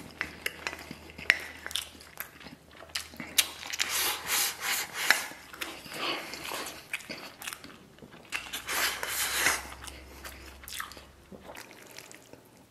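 A man eating rice with braised pork belly and sauerkraut: chewing and biting with open mouth noises, and a few sharp clicks of wooden chopsticks against a stainless steel bowl.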